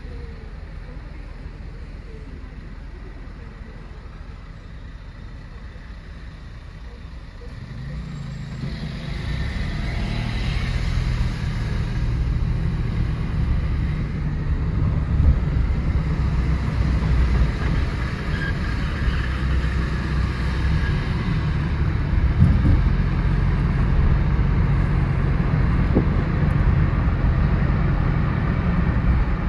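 Small car driving, its engine and road noise a steady low rumble. The noise is fainter for the first several seconds, then grows louder about a quarter of the way in and stays up.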